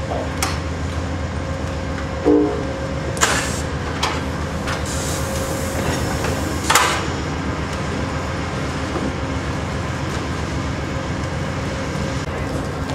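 Amtrak passenger cars rolling past at close range: a steady rumble of wheels on rail, broken by a few sharp clacks as wheels cross rail joints, the loudest about seven seconds in.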